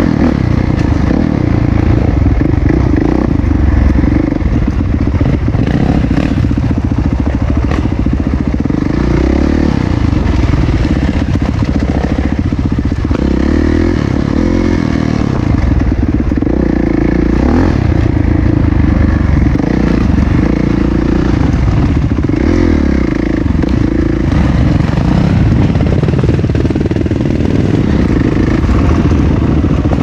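Dirt bike engine running close by, heard from the rider's own machine, its sound swelling and easing with the throttle as the bike rides a rough dirt trail.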